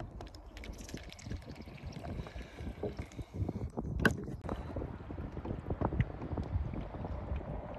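Wind rumbling on the microphone, with small irregular knocks and clicks from handling in a fishing kayak; one sharper click about four seconds in.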